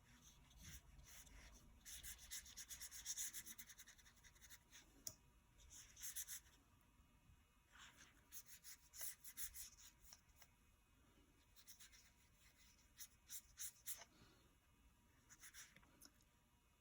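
Faint paintbrush strokes on paper: soft brushing and scratching in short clusters of quick strokes with pauses between, as watercolor is painted on.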